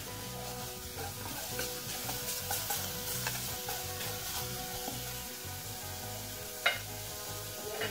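Wooden spoon stirring sliced onions in a little water in an aluminium pot over a gas flame. The pan gives a steady sizzling hiss, with light scrapes and taps of the spoon against the pot and one sharp knock near the end.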